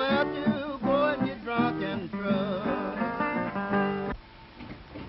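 Blues song on strummed acoustic guitar with a wavering melody line over it, stopping abruptly about four seconds in and leaving only faint soundtrack hiss.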